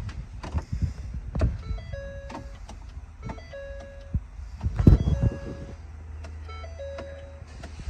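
The cabin electronic warning chime of a 2015 Ford Expedition repeats about every second and a half, four times: a short higher note stepping down to a longer lower one. Under it are low rumble and knocks from the handheld camera, the loudest near the middle.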